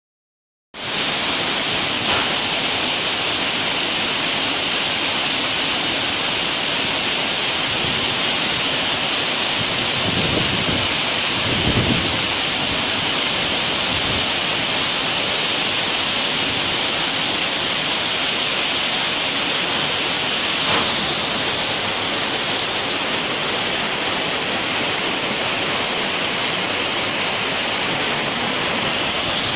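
Rushing water from an industrial wastewater outflow channel, a steady loud hiss that starts suddenly under a second in. A few faint knocks and some low rumbles come through around the middle.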